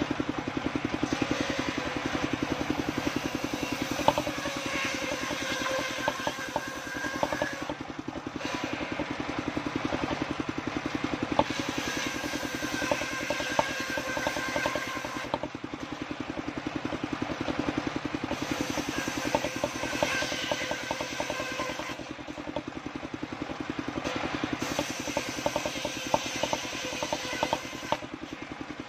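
Engine-driven circular saw bench running steadily with the engine's rapid even pulse, its blade ripping waru wood into battens. The cutting comes in repeated passes of several seconds each, with short breaks between where only the engine and free-spinning blade are heard.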